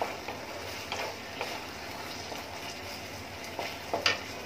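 Sauce-coated vegetables sizzling steadily in a wok, with a wooden spatula scraping and knocking against the pan a few times as they are stirred.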